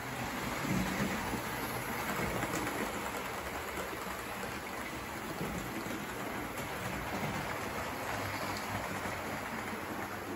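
Several Hornby OO-gauge model trains running on the layout's track, giving a steady rumbling hiss of wheels on rails and small electric motors.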